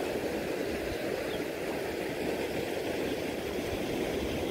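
Shallow river riffle running fast over a gravel bed: a steady rushing of water with no breaks or distinct events.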